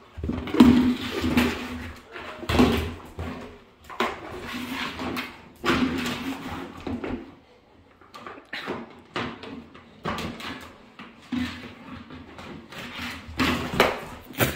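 A yellow Labrador mouthing and shoving a cracked, flexible plastic bucket across a hardwood floor: irregular bursts of plastic scraping, crinkling and knocking on the boards.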